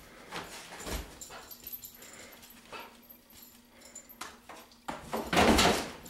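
Puppy searching on a concrete floor: scattered soft scuffs, knocks and sniffing noises, with one louder rustle lasting under a second near the end.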